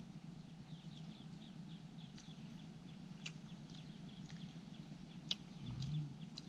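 Faint, rapid chirping repeating several times a second over a low steady hum, with two sharp clicks and a short low thud near the end.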